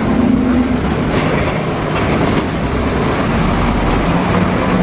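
Loud, steady rumble of a large vehicle running, with a low engine hum underneath. It is a vehicle sound effect laid in for a double-decker bus.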